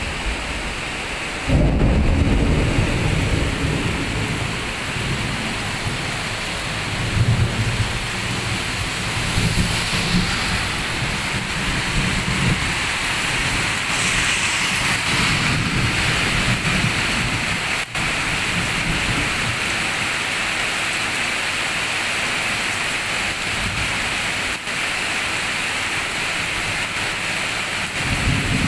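Heavy rain pouring down steadily, with a loud rumble of thunder breaking in about a second and a half in and rolling on in low swells for several seconds.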